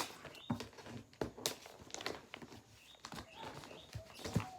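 Gift-wrapping paper rustling and crinkling as a wrapped present is opened, with irregular crackles and sharper clicks.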